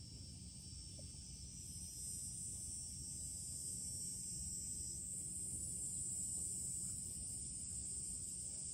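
A chorus of insects singing in a steady high-pitched buzz. It swells a little about two seconds in, over a low steady rumble.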